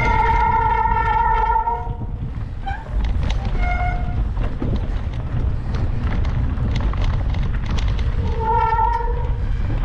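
Mountain bike riding noise: a heavy low rumble of wind and tyres with knocks and rattles from the rough trail, broken by three high squeals, one lasting about two seconds at the start, a short one about four seconds in, and another near the end.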